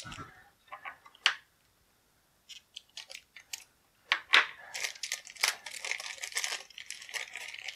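Clear plastic bag crinkling and crackling as hands open it to take out a plastic miniature: a few scattered crackles at first, then denser, steadier crinkling from about four seconds in.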